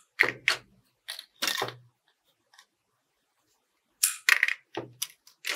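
Scissors snipping plastic drinking straws into pieces: a few sharp snips, a pause of about two seconds, then a quicker run of snips.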